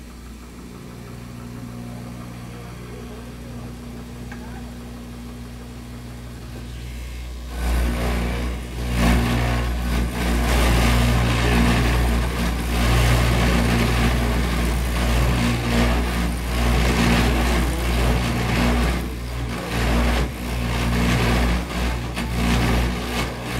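Clog-hollowing spoon-drill copying machine running with a steady motor hum. About seven seconds in, the drill starts cutting into the wooden clog blank and gets much louder, a rough cutting noise that swells and eases as the cutter is guided along the model.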